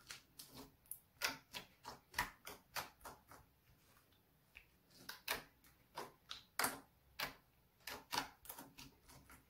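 Pink slime being pressed and folded between the fingers, its trapped air pockets popping in a run of sharp clicks, several a second, with a short lull about four seconds in.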